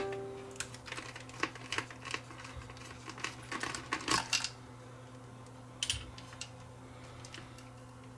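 Small metallic clicks and clatter of a screwdriver and loose screws as an amplifier circuit board is unscrewed, with a quick run of taps about four seconds in and one more a couple of seconds later.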